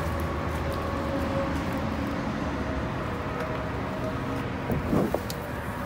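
Steady traffic noise from the road bridge overhead: a constant low rumble of passing vehicles, with a brief louder sound about five seconds in.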